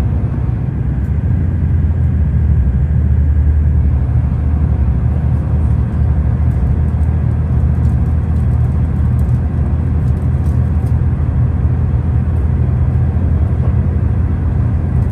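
Train running with a steady low rumble, with faint light ticks over it in the second half.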